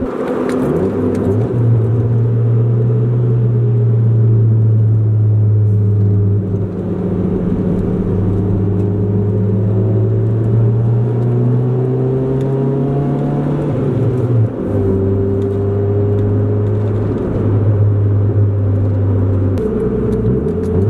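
A 1997 Honda Civic's four-cylinder engine droning steadily inside the moving car, with road noise underneath. The pitch creeps up as it accelerates, then drops with a brief dip in loudness about two-thirds of the way through, as at a gear change.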